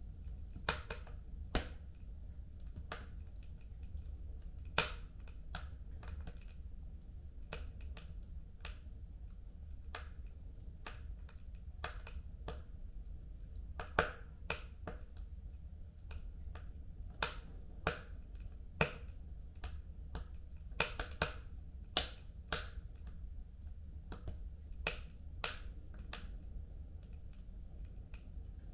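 Wood fire crackling in a home fireplace: irregular sharp pops and snaps, about a dozen of them loud, over a steady low rumble.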